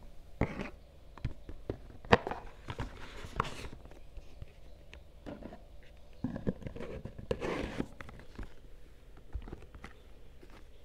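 Hands fitting a red watch presentation box back into its snug outer box: a scattered series of light taps, knocks and short scrapes of card and leatherette.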